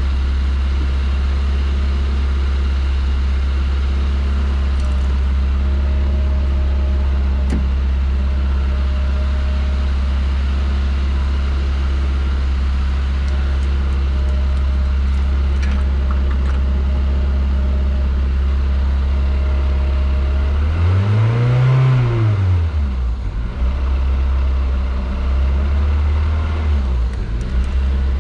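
Toyota Celica's freshly rebuilt 1ZZ-FE four-cylinder engine on its first start, running at a steady high idle of about 2,000 RPM. About 21 seconds in it is revved once, the pitch rising and falling over about two seconds, then held a little higher and blipped again near the end. The high idle comes with the engine reading really lean.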